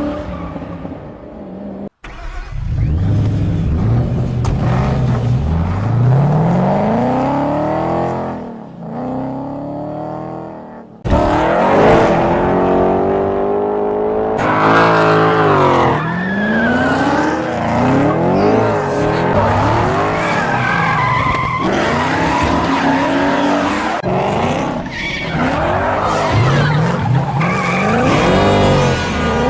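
2014 Ford Mustang engine revving hard, its pitch climbing and falling again and again through gear changes, with tyres squealing at times. The sound cuts abruptly from shot to shot, twice dropping out briefly.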